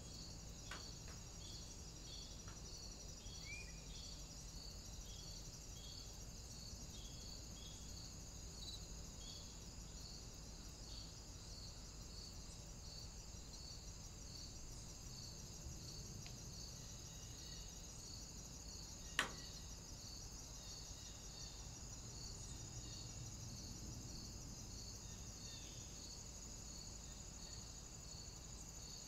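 Faint, steady high-pitched chirring of insects with a regular pulsing beat, and one sharp click about two-thirds of the way through.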